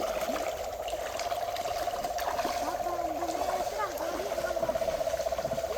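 A frog calling at night: a steady, fast pulsing trill that runs on without a break, with water trickling faintly beneath it.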